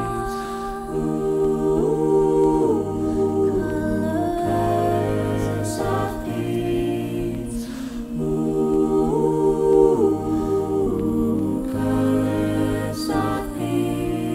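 A cappella vocal ensemble singing sustained chords in close harmony over a bass line, the chords changing every couple of seconds.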